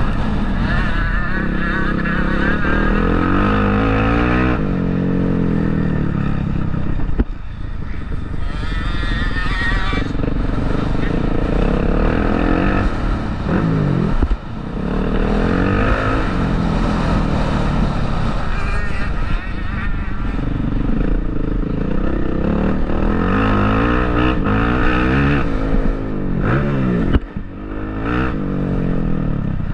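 Motocross bike engines revving hard and dropping back, the pitch climbing and falling through the gears over and over, with sudden throttle cuts about 7, 14 and 27 seconds in.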